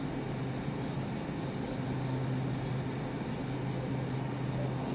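Steady low hum of supermarket refrigeration and air-handling equipment, with a faint even background hiss.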